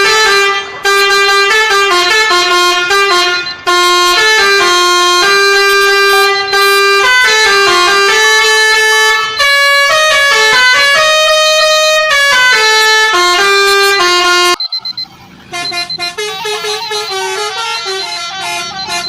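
A truck's 'telolet Basuri' multi-tone musical horn playing a loud melody of held notes. About fifteen seconds in it cuts off abruptly and gives way to a quieter, quicker run of horn notes.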